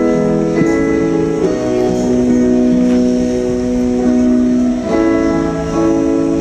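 Instrumental opening of a slow worship song: sustained chords with a plucked-string timbre, changing chord about a second and a half in and again near five seconds, with no singing.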